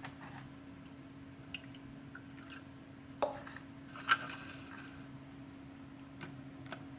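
A few faint clicks and taps of small plastic toy pieces being handled, spaced a second or more apart, over a steady low hum.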